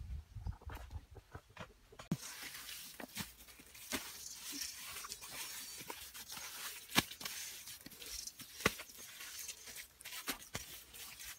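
Wet mud being pressed and smeared by hand onto a woven frame of sticks and roots: irregular squelches and slaps, with two sharper clicks in the second half.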